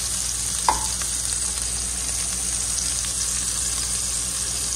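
Pieces of blackened barrel fish frying in hot grease, a steady sizzle, with one short clink just under a second in.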